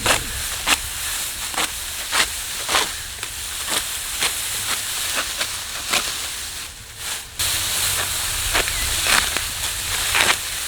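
Ripe rice stalks being cut in the field: a sharp rasping stroke about every half second over a steady dry rustle, pausing briefly around the middle.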